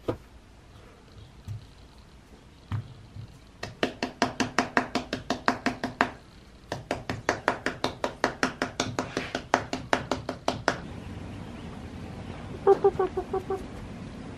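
Steel casting flask full of wet plaster investment rapped over and over on a granite countertop, about five ringing knocks a second in two runs with a short pause between, to work air bubbles out of the plaster. Near the end, a short run of pitched chirps.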